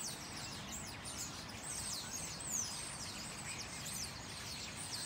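A flock of house sparrows chirping together: a dense chorus of overlapping short chirps, several a second, over a low steady background rumble.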